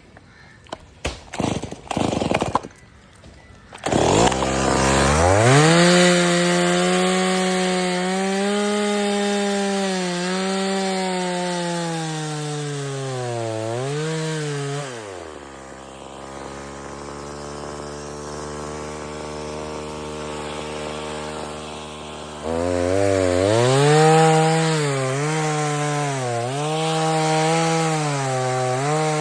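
Petrol chainsaw: a few short bursts, then the engine starts about four seconds in and runs at high revs, its pitch dipping and recovering as it cuts wood. Around the middle it drops back to idle, then revs up and cuts again for the last several seconds.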